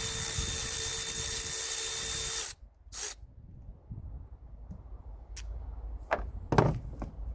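Power drill running at a steady speed with an even whine, cutting off suddenly about two and a half seconds in, then a brief burst from it. A few sharp knocks of tools and parts follow, the loudest near the end.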